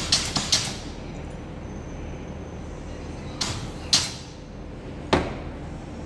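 Pneumatic perfume-bottle crimping machine working: its air cylinder strokes with sharp clacks, a quick cluster at the start, then a short hiss of air and a clack near the middle and another clack a second later.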